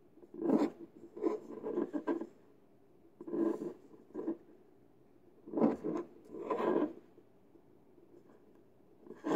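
Eggshell scraping and rubbing on a countertop as a raw egg is wiggled by hand to stand it on its end, in three bouts of short scratchy rubs, the last ending about seven seconds in.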